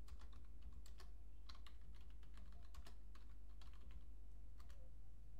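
Computer keyboard being typed on: a run of single key clicks at an uneven pace as a short terminal command is entered.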